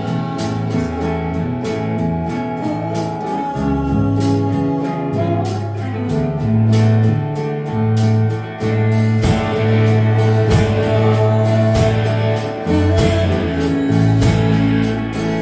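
Live band playing an instrumental passage: guitars over a bass line that changes note every second or so, with drums and steady cymbal strokes.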